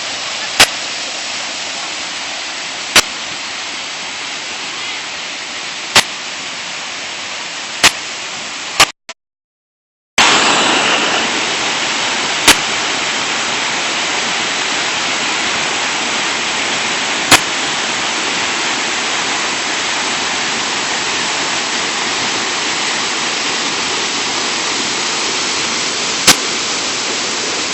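Chrey Thom waterfall rushing as a steady wash of water noise, broken by about eight sharp clicks. The sound drops out for about a second roughly nine seconds in, then comes back louder.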